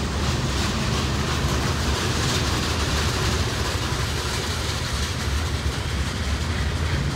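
Boxcars of a long freight train rolling past close by: steel wheels running on the rails in a steady, even noise.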